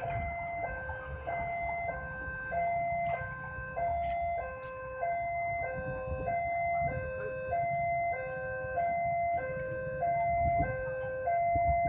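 Electronic warning alarm of an Indonesian railway level crossing ringing a steady two-tone 'ting-tong' pattern, high and low notes alternating about every 0.6 s. Underneath it runs a low engine rumble.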